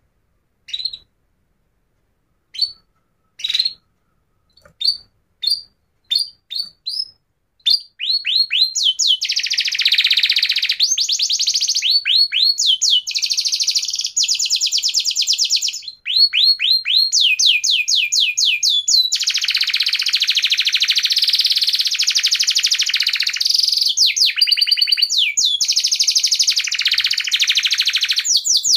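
A bird singing: a few separate short chirps, then from about eight seconds in a continuous song of rapid trills and repeated rising notes.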